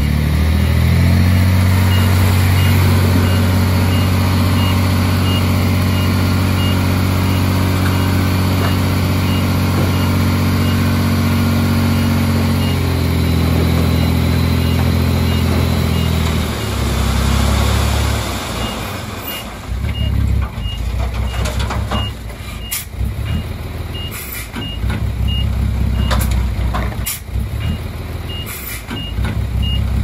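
Heavy diesel earthmoving machinery running loud and steady under load, with a reversing alarm beeping. After about 18 seconds the engine eases off and a series of sharp metallic clanks and knocks comes through as the reversing alarm beeps again.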